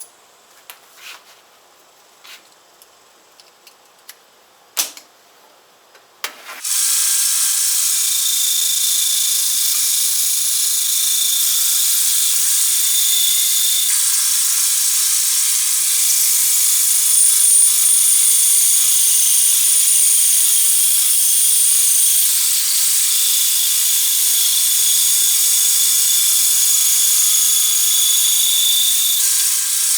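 A few light clicks and knocks, then about seven seconds in a bandsaw cutting sets in abruptly as a board is resawn: a loud, steady rushing noise with a wavering high whine that runs until just before the end.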